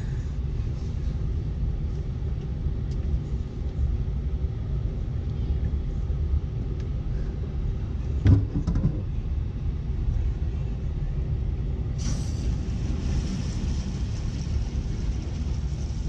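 A steady low rumble, then a single clunk about eight seconds in as the tankless water heater's service valves are worked. About twelve seconds in, a steady hiss starts suddenly and holds: water rushing through the reopened valves after the descaling flush.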